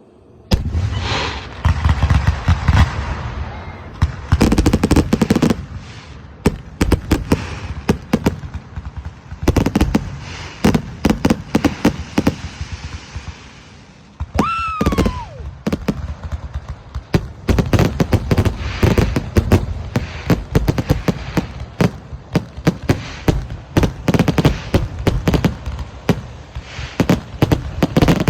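Aerial fireworks going off in a dense, rapid barrage of bangs and crackles in several clusters, with a whistle falling in pitch about halfway through.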